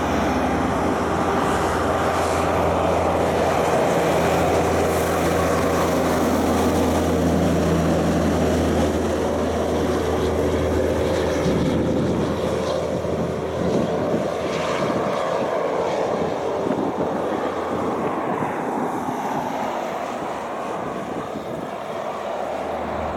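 Heavy diesel truck-and-trailer unit's engine running steadily as it passes on the highway and pulls away, the sound slowly fading over the second half.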